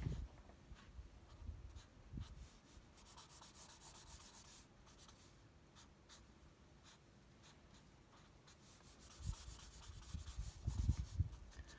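Felt-tip marker pen scratching on paper as lines are drawn, faint and intermittent, turning into quicker, louder scribbling strokes about nine seconds in as the ground is shaded.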